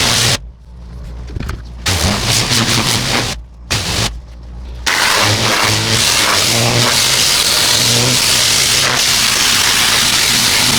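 Pressure washer with a turbo nozzle blasting a concrete surface: a loud, steady hiss of spray over the low hum of the machine's engine. The spray cuts out for over a second near the start and twice more briefly as the trigger is let go, then runs steadily.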